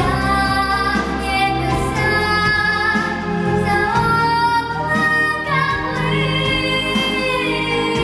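A young girl singing solo into a microphone over instrumental accompaniment, with long held notes that slide from one pitch to the next.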